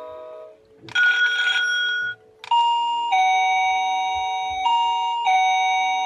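SilverCrest STK 17 A1 wireless doorbell receiver playing its chimes through its small built-in speaker: a single held tone about a second in, then a two-note ding-dong, high then low, sounded twice.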